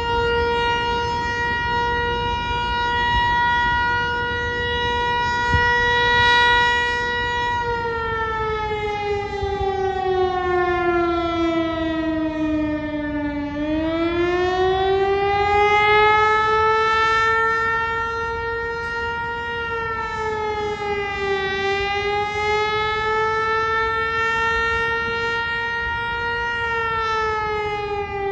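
Outdoor warning siren sounding a steady, loud tone with many overtones. About eight seconds in, its pitch sags for several seconds, then climbs back and holds again with two small dips near the end.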